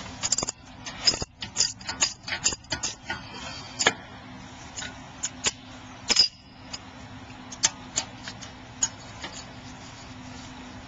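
Half-inch-drive ratchet clicking on a 7 mm Allen key as the rear brake caliper slider bolts are undone: quick runs of clicks for the first four seconds, then scattered single clicks.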